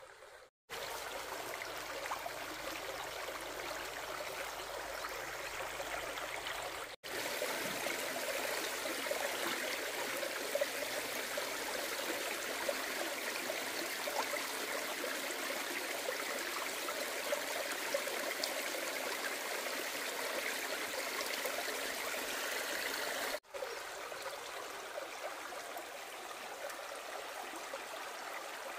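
Shallow stream running: a steady rush of flowing water that cuts out for an instant three times.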